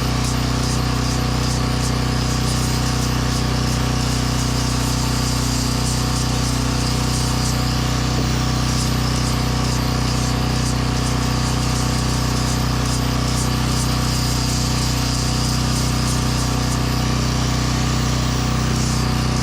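Portable generator's engine running steadily at constant speed, a low even hum, with a higher hiss above it that flickers and comes and goes.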